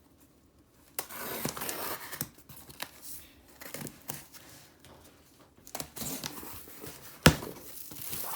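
Packaging being torn open and crinkled by hand, in rustling spells with small clicks, and one sharp knock near the end.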